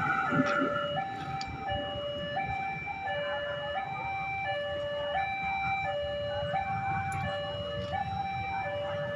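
Railway level-crossing warning alarm sounding a repeated two-tone signal, a higher and a lower tone alternating about every 0.7 s. Under it is the low rumble of traffic waiting at the crossing, and the noise of the departing electric commuter train fades out in the first second.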